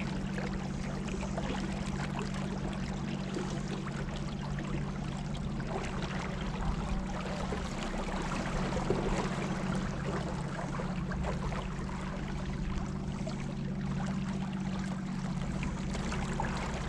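River water rushing and trickling past a moving kayak, steady throughout, with a constant low hum underneath.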